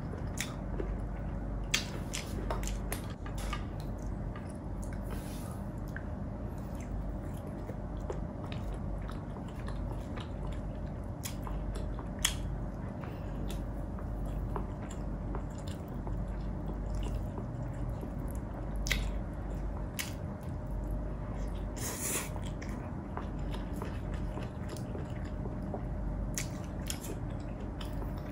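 Close-miked chewing and biting of pork adobo and rice, wet and squishy, with scattered sharp clicks or crunches.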